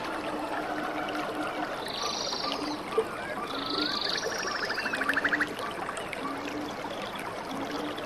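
Small cascading waterfall and stream running steadily, with animal calls repeating over the water: arching higher calls about every two seconds, short low notes, and a rapid pulsed trill about five seconds in. A single sharp tick about three seconds in.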